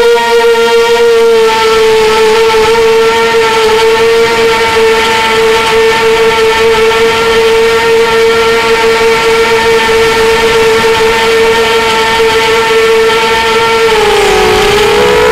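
Strider Flex 250 FPV quadcopter's brushless motors and propellers whining at a steady pitch, heard close up from the quad's own onboard camera. Near the end the pitch dips briefly as the throttle comes off, then climbs back.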